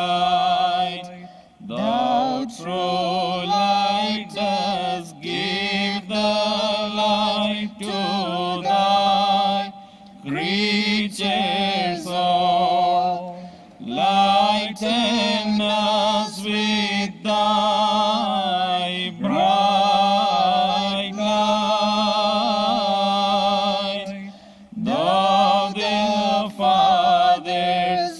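A group of Oriental Orthodox clergy and singers chant a liturgical hymn together. The hymn moves in long, ornamented phrases over a steady low held note, with brief pauses between phrases.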